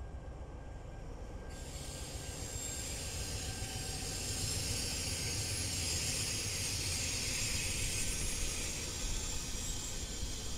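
Train passing: a low rumble under a high hiss with faint steady squeal tones from the wheels. It grows louder over the first few seconds and eases slightly near the end.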